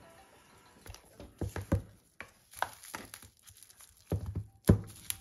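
Cardboard phone box being handled and its lid pulled off, with the bubble-wrapped phone inside: scattered light knocks, taps and faint crinkles, the sharpest knock about four and a half seconds in.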